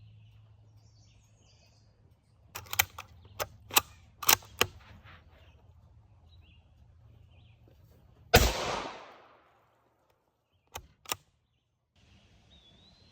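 A series of sharp metallic clicks and clacks, then about halfway through a single loud rifle shot from an SSG 82 bolt-action rifle in 5.45x39mm, with a decaying echo tail. Two more sharp clicks follow near the end.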